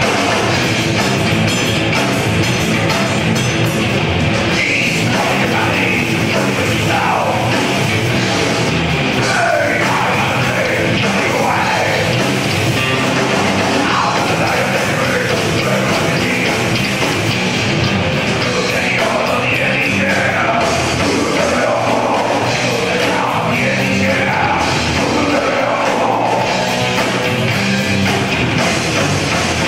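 Thrash metal band playing live: distorted electric guitars, bass guitar and drums, with a shouted vocal over them.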